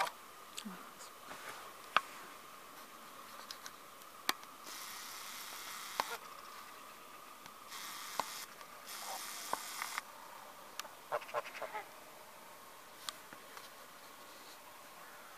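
Domestic geese giving faint low calls in the first few seconds, then scattered sharp clicks and a few short stretches of crunching snow.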